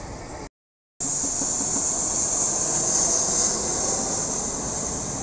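Embraer Legacy 600 business jet with Rolls-Royce AE 3007 turbofans passing overhead on its landing approach: a loud, high-pitched jet hiss that swells to its loudest about three seconds in, then eases a little. Before it, a quieter steady aircraft noise cuts off completely about half a second in, with half a second of dead silence.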